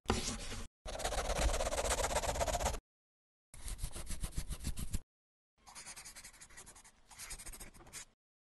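Pen scribbling on paper, in several bursts of quick scratching strokes, each cut off sharply into dead silence; the last burst is softer.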